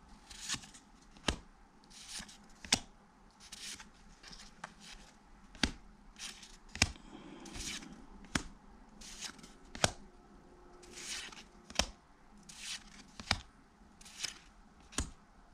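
Cardboard trading cards being thumbed through one at a time: each card slides off the stack with a soft swish, and a sharp snap comes roughly every second or so as a card is flicked to the back.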